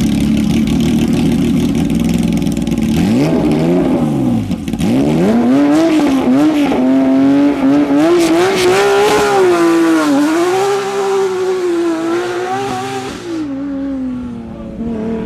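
Rally car engine, steady for the first few seconds and then revving hard, its pitch climbing and dropping repeatedly through gear changes. A broad hiss rides over it from about six seconds in and cuts off sharply near the end.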